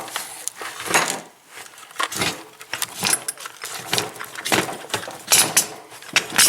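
Irregular metallic clinks, rattles and scrapes as the coil spring and its retainer are worked off a coilover shock by hand.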